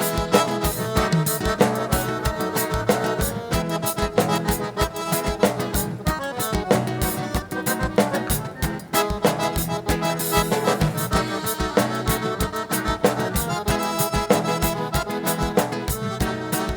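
Instrumental break of gaúcha dance music led by accordion (gaita) over a steady, driving beat, with no singing.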